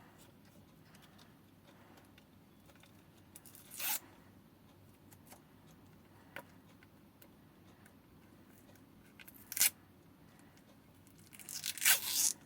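Old adhesive tape being peeled off an e-bike lithium-ion battery pack, stuck on for a long while: a short rip about four seconds in, another near ten seconds, then a longer, louder ripping stretch near the end.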